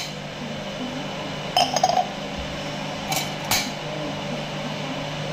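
Stainless steel tumblers clinking and knocking as they are picked up and handled: a quick cluster of ringing clinks about one and a half seconds in, then two sharper knocks about a second later.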